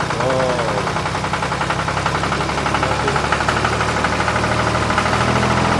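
Tractor engine sound running steadily with a rapid knock, starting abruptly at full level.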